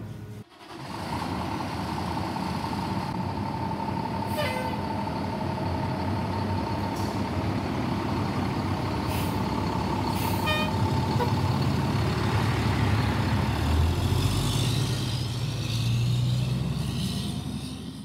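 A fire engine running steadily, with two brief tones about four and ten seconds in and a deeper, louder engine note building near the end.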